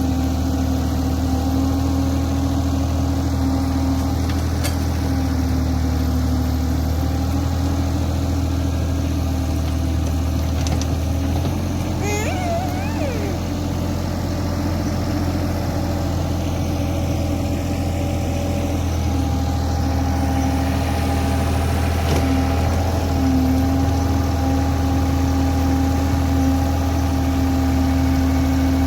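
Caterpillar 303 mini excavator's diesel engine running steadily, its low note shifting for several seconds around the middle. A brief wavering whine rises over it about twelve seconds in.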